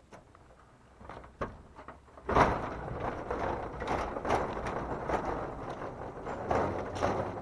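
Irregular crunching and scraping of movement on gravel, starting abruptly about two seconds in: steps and the small wooden dog cart shifting on the stones.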